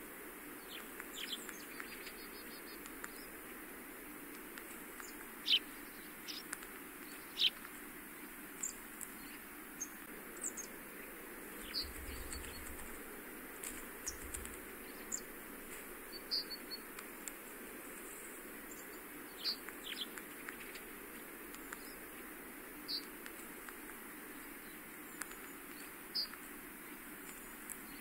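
Short, high bird chirps and calls, a dozen or more, scattered irregularly over a steady background hiss. A brief low rumble comes twice near the middle.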